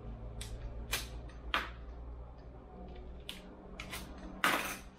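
Plastic parts bag of corner brackets being cut open with a utility knife and handled: a string of short, sharp crinkles and clicks, with a louder rustle of the plastic about four and a half seconds in.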